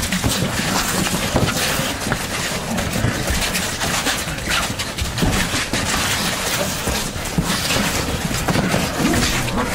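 Commotion of a group of people grappling and struggling at close quarters: a dense run of scuffs, knocks and footfalls with no letup.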